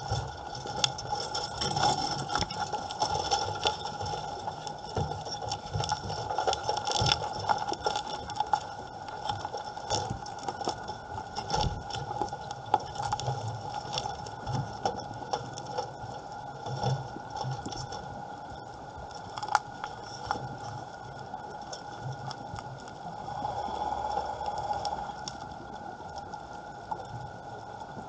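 Underwater sound on a coral reef: a constant crackle of sharp clicks over a steady whine at several pitches, with low rumbling surges now and then.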